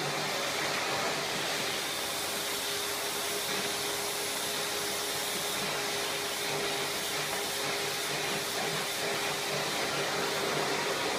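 Canister vacuum cleaner running steadily, its floor brush being passed over a dog's fur: an even rush of suction with a steady hum in it.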